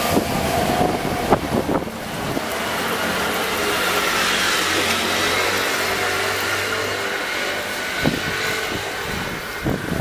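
A motor vehicle passing close by, its noise swelling over a couple of seconds, holding, then easing off. Gusty wind buffets the microphone.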